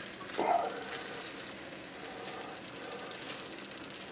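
A pan of rabbit in red wine sauce sizzling faintly on medium heat as lemon juice is squeezed into it by hand. One brief louder sound comes about half a second in.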